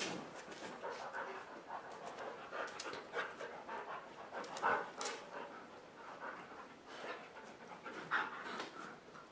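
A German Shepherd and a Siberian Husky panting while they play-wrestle, with irregular scuffling of paws and bodies on a fleece dog bed and a few sharper knocks.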